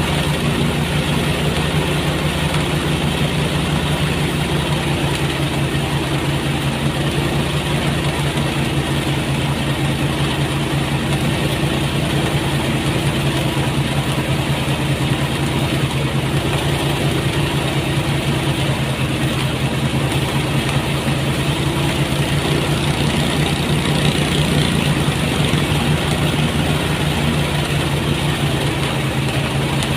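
Engine-powered rice threshing machine running steadily: a constant engine drone with a rushing, whirring noise over it.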